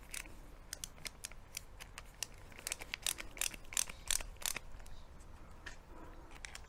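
Irregular small clicks and taps of hard plastic being handled: the pieces of a motorhome door retaining catch and a small tube of silicone sealant worked together in the hands as the catch is sealed and slotted together. The clicks come thickest about three to four and a half seconds in.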